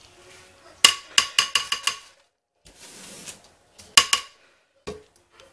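Metal box grater clanking against the crock pot with a ringing tone: a quick run of about seven knocks, a short rasp of soap being grated, then a few more knocks about four seconds in.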